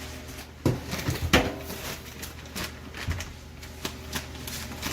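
Scattered light clicks and knocks over a steady low hum, the loudest knock about a second and a half in.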